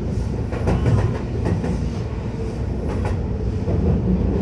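Keihan 10000 series electric train running, heard from inside the car: a steady low rumble with irregular clicks and clacks from the wheels on the track.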